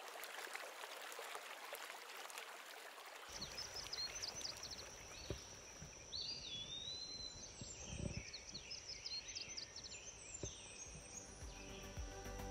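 Faint dawn birdsong: short chirps and whistled calls over a steady high-pitched tone, starting a few seconds in after a stretch of faint hiss.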